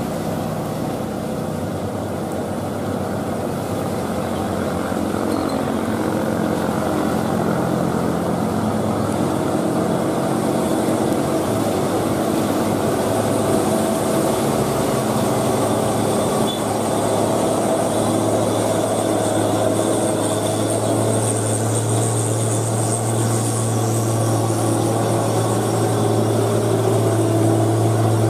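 Hino 500 dump truck's diesel engine pulling steadily up a grade under a load of sand, growing louder as the truck nears and passes, with a steady low drone through the second half.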